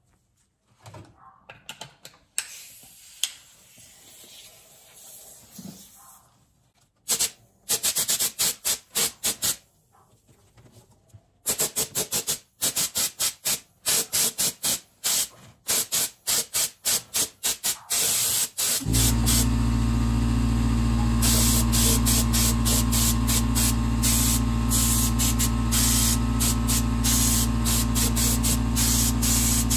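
Cheap handheld air spray gun spraying paint in many short hissing bursts as the trigger is pulled again and again, starting about seven seconds in. About 19 seconds in, a motor starts and runs steadily with a low hum under the continuing spray hiss.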